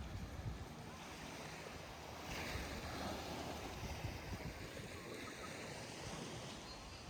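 Gulf of Mexico surf washing onto a sandy beach, a steady rush of water that swells about two seconds in. Low thuds of wind on the microphone run underneath.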